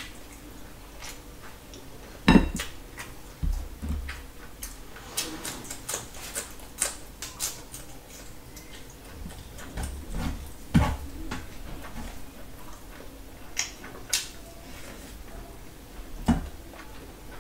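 Close-up eating sounds as fried chicken is bitten and chewed by hand: a run of short wet mouth clicks and smacks, with a few louder knocks, the loudest about two seconds in.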